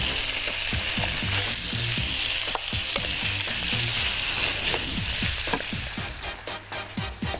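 Chicken livers sizzling in hot oil in a frying pan as they are tipped in and stirred with a wooden spoon. The sizzle dies down about five seconds in.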